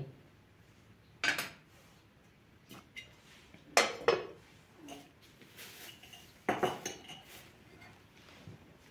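Metal cookware clattering: a ladle clinks on a metal cooking pot, then a metal lid is set on the pot with two clanks about four seconds in, and one more clank a few seconds later.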